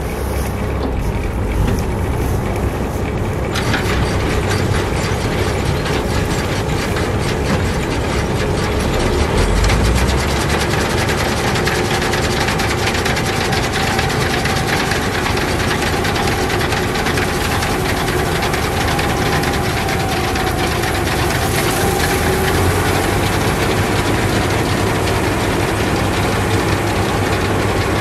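New Holland 8070 combine harvester running while it cuts wheat: steady engine and machinery noise, which grows fuller and hissier about three and a half seconds in.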